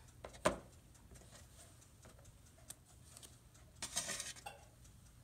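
A metal spatula clinking and scraping against a metal baking tray as baked biscuits are lifted off it: a sharp clink about half a second in, a faint tap later, and a short spell of scraping and clatter near the four-second mark.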